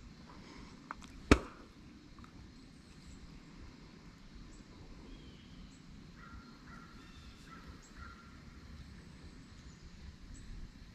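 Crows cawing several times in a short series midway through, over faint open-air background. A single sharp knock about a second in is the loudest sound.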